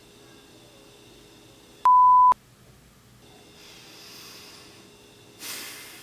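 A single loud electronic beep: one steady pure tone of about 1 kHz lasting about half a second, cut on and off abruptly. After it comes faint hiss, and near the end a short hissing burst that fades away.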